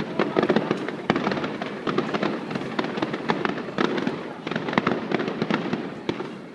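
Aerial fireworks going off in a dense, rapid run of overlapping bangs and pops, fading just before the end.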